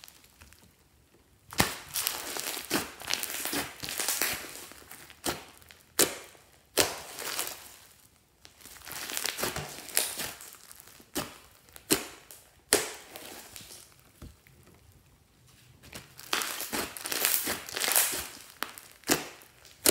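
Hands squeezing and kneading thick pink slime with small beads mixed through it, giving bursts of crackly, squelching crunching with sharp pops, in rounds separated by short lulls.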